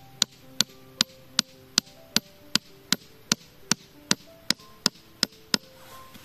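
Machete knocking on a wooden stake in a fast, even rhythm of about two and a half strikes a second, driving it into the ground, then stopping near the end. Background music plays underneath.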